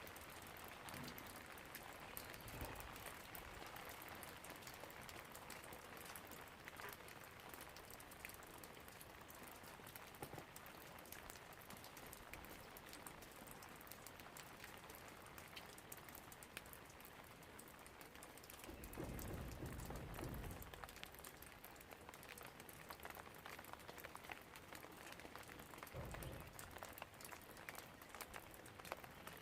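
Steady rain with many individual drops ticking on a surface, faint. A low rumble swells for about two seconds roughly two-thirds of the way in, and a shorter one comes near the end.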